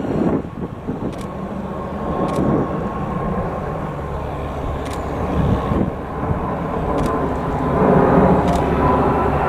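Airbus Beluga XL flying low overhead, its twin Rolls-Royce Trent 700 turbofans giving a steady rushing jet noise with a high whine, growing louder toward the end.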